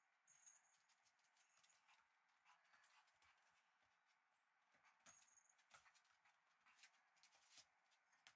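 Faint, irregular tapping and clicking of a shiba inu puppy's paws and claws on a hard floor as it scampers and pounces, busier in the second half.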